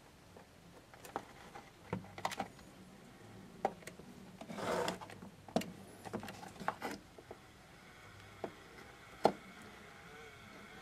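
Hands handling a small plastic-cased generator and its wiring: scattered light clicks and taps, with a brief rubbing sound about halfway through.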